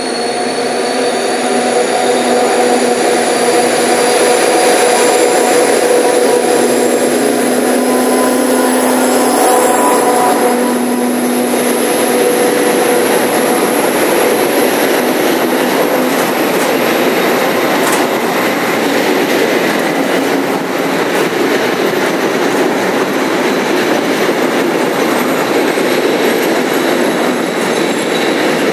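Class 232 diesel locomotive approaching and passing, its engine running with a steady drone and a high whine. About a third of the way in it gives way to the steady rolling noise of a long string of loaded hopper wagons going by on the rails.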